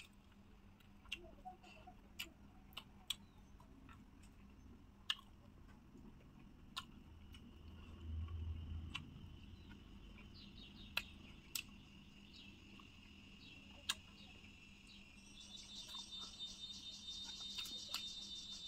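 Faint, sparse eating noises: scattered sharp clicks and smacks of a person eating. Behind them is a high steady trill that grows louder about three seconds before the end.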